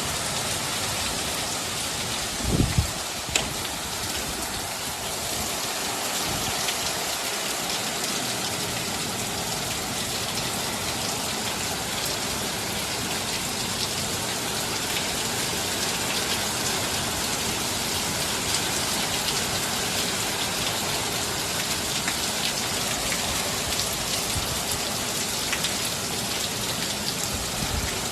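Heavy rain falling steadily in a storm, a dense even hiss of drops. About two and a half seconds in there is a brief low thump.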